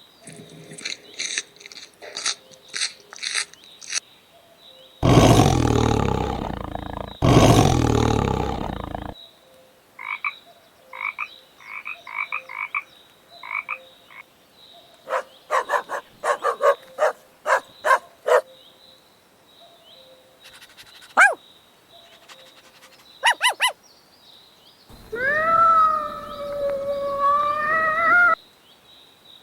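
A series of different animal calls one after another: rapid clicking pulses, then two long, loud, rough calls, then several runs of short croaking pulses, two brief chirps, and a long pitched call that wavers up and down near the end.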